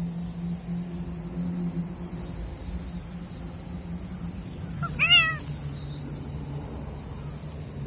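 A cat gives one short meow about five seconds in, over a steady high drone of insects.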